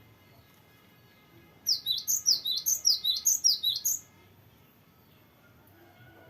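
Cinereous tit (gelatik batu) singing a fast rolling burst of about a dozen high, downward-sweeping notes, about six a second, lasting a little over two seconds from about one and a half seconds in.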